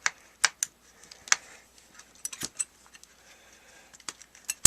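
Irregular sharp clicks and light clatter of a cordless screwdriver's plastic housing and small parts being handled and pulled apart by hand.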